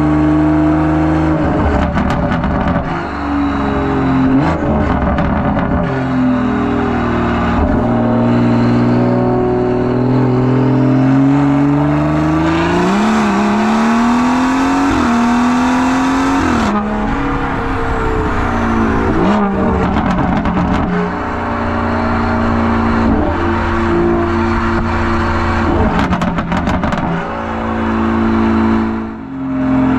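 BMW 340i's B58 turbocharged inline-six through a catless downpipe and an open-valve M Performance exhaust. It cruises at light throttle, then accelerates hard about halfway through, the note climbing steeply before it drops off suddenly when the throttle is lifted. Sharp exhaust crackles and pops sound at light throttle and on the overrun.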